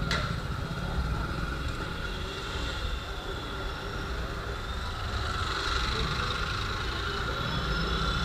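Low rumble of motorcycles idling and passing, with a steady whine from a petrol pump dispensing fuel into a motorcycle's tank.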